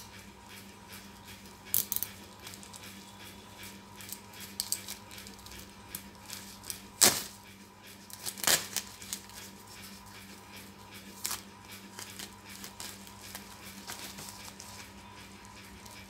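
Plastic courier mailer bag being handled and slit open with a cutter: irregular rustling and crinkling of the film, with sharper crackles, the loudest about seven and eight and a half seconds in.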